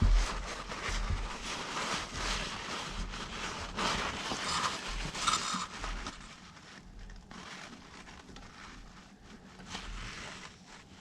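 Hands working a hose fitting on an air compressor: irregular scraping and small knocks as the fitting is wiggled and turned, fainter after about six seconds.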